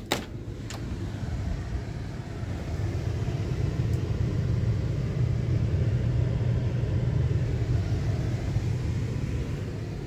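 An HVAC air handler's blower fan running with a steady low drone, growing louder over the first few seconds and easing off near the end. A sharp click of the louvered closet door's knob and latch comes right at the start.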